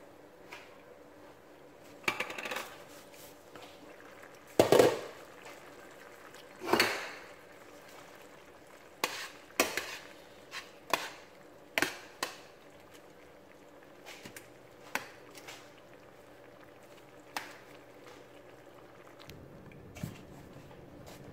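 Metal tongs and a glass pot lid clinking and knocking against a stainless steel pan while chicken and shrimp are turned in a cream sauce: about a dozen separate sharp clinks, irregularly spaced.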